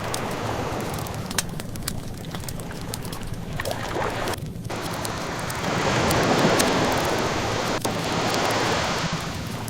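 Ocean waves washing in and drawing back, with one swell building about six seconds in. Over them a wood fire crackles with scattered sharp pops.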